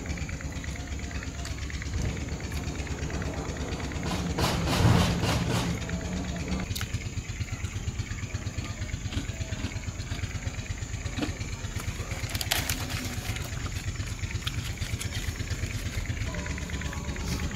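An engine running steadily in the background with a fast, low pulsing, and a short louder patch about five seconds in.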